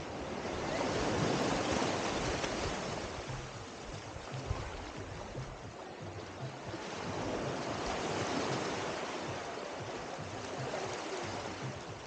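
Small waves washing up onto a sandy beach, the surf rising and falling twice.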